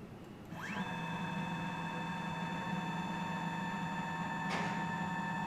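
Electric motor starting with a quick rising whine about half a second in, then running with a steady high whine over a low hum until it cuts off at the end. This is the strange motor noise from an intermediate stage that will not move.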